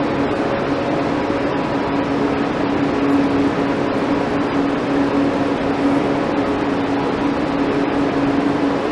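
A steady hum over a constant hiss, with no knocks or voices.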